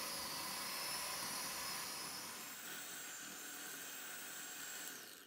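Electric hand mixer running steadily, its beaters creaming butter and sugar in a glass bowl; it switches off shortly before the end.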